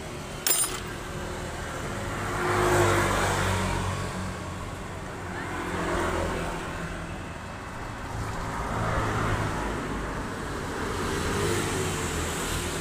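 Engine running at high speed, its sound swelling and falling about four times, with a sharp click about half a second in. The owner says it keeps running at too high an rpm, overheats quickly and soon dies.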